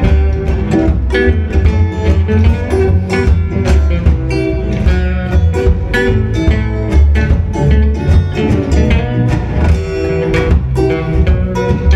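Live band playing an instrumental stretch of a song, with plucked strings over a strong, steady bass.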